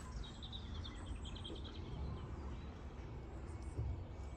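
A small songbird singing a quick run of short, high repeated notes in the first half, over a steady low outdoor rumble.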